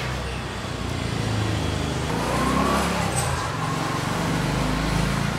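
A motor vehicle's engine running nearby, a low rumble that swells and grows louder over the few seconds.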